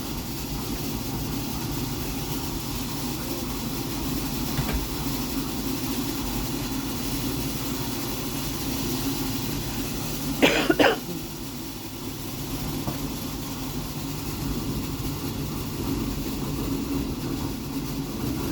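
A steady low droning hum, unbroken, with two short sharp sounds close together about ten seconds in.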